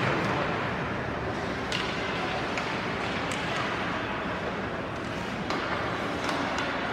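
Ice hockey arena sound during live play: a steady wash of rink noise from skates on the ice, with a few sharp clicks of sticks and puck.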